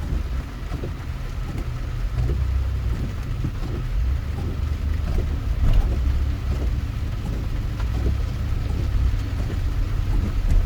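Steady low rumble of a car driving at highway speed, heard inside the cabin, with tyre noise from the rain-wet road.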